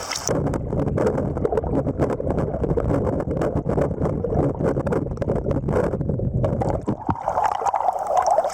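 River water heard with the microphone underwater: a muffled, rushing rumble with the high end cut off, dotted with many small clicks and bubbling.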